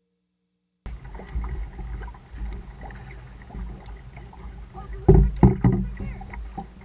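Canoe on open water: the splash and knock of paddling against the hull, with a low rumble of wind on the microphone. It starts after about a second of silence, and a few louder knocks come about five seconds in.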